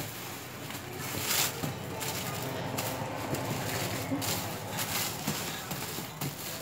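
Tissue paper rustling and crinkling as hands press and smooth it over a paper piñata head, with a louder crackle about a second and a half in.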